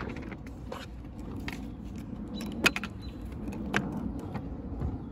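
Plastic screw caps being twisted off plastic bottles of Prime Hydration drink, with a string of sharp clicks and light knocks as caps come free and bottles are handled on a plastic table; the loudest snap comes a little past halfway.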